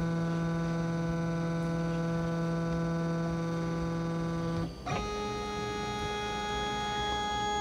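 Background music: a long held chord that changes to another chord about five seconds in.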